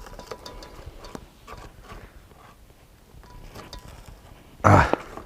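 Light, irregular knocks of a knife on a cutting board as grilled sausages are sliced into rings, with one louder thump near the end.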